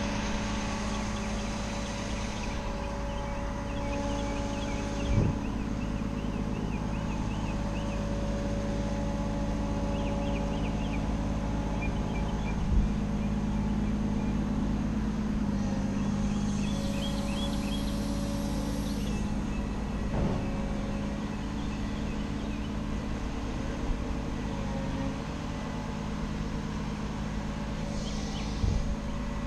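Bucket truck's engine and hydraulic system running steadily as the aerial lift's boom moves, a continuous hum with a slight change in pitch about halfway through. A few single knocks and short high chirps come now and then.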